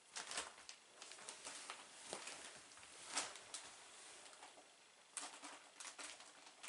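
Kittens scrabbling on a fleece cat bed and a fabric crate: claws scratching and catching on the fabric. They make faint, irregular scratchy clicks and rustles in clusters, with a fresh flurry just past five seconds.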